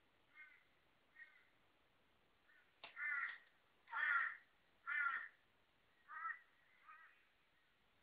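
Torresian crow cawing: a series of about eight harsh caws roughly a second apart, faint at first, loudest near the middle, then fading.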